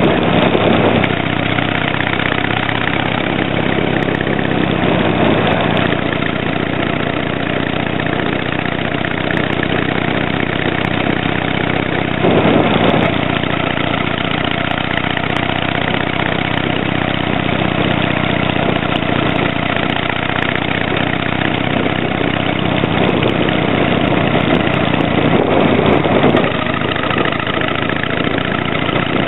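Harley-Davidson Sportster 883 Hugger's air-cooled V-twin running through tapered mufflers fitted with silencer inserts, heard while riding at an even pace. The exhaust swells briefly a few times as the throttle opens, near the start, about 12 seconds in and near the end.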